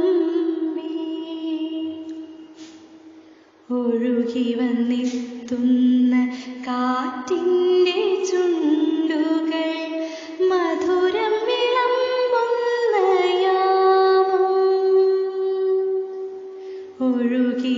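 A song with a woman's voice singing a slow melody in long, gliding held notes. The voice fades out about three seconds in and comes back sharply just under four seconds in.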